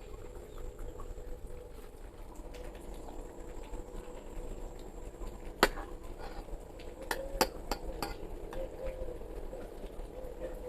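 Low background with a handful of sharp clicks or knocks, one about halfway through and a quick cluster of three or four soon after.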